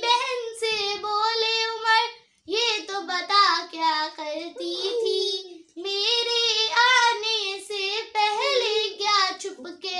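A girl singing a naat unaccompanied, holding long notes with vibrato in phrases broken by two short pauses for breath.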